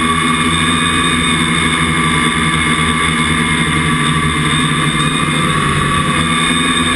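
Small drone's electric motors and propellers giving a loud, steady whine of several tones at once, heard through the camera on board.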